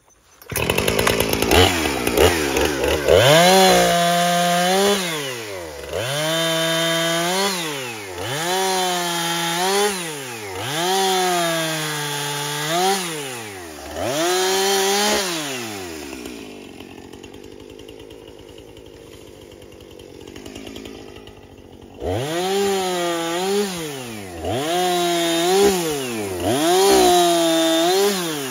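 Two-stroke gas chainsaw cutting through tree limbs: the engine is revved up in repeated bursts roughly every two seconds, each rising, holding and dropping back. It falls to a low idle for about six seconds in the middle, then revs in bursts again.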